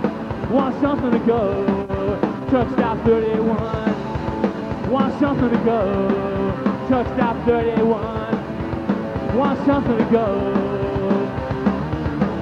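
Live rock band playing: electric guitars, bass and drums, heard from the audience through an old VHS recording with a dull top end.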